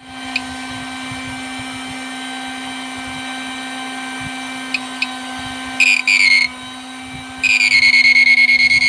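Mini MOSFET circuit under power: a steady low hum with a faint high whine and a few light clicks. About six seconds in, a loud high-pitched whine cuts in briefly, then about a second later comes back and holds with a pulsing level. This is the strange sound the units are making.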